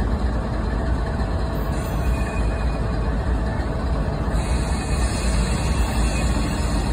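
Diesel-electric freight locomotives running light through a rail yard, a steady low engine rumble as they draw closer.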